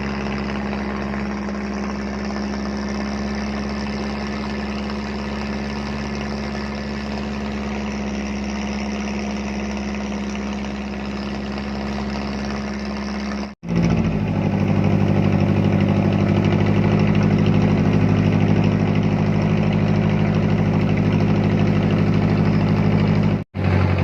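Boat engine running steadily with a constant drone. About halfway through it cuts off abruptly and comes back louder, then cuts off briefly again near the end.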